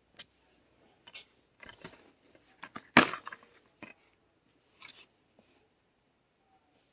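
Handling of a plastic DVD case: a series of scattered clicks and taps, with one louder sharp snap about three seconds in.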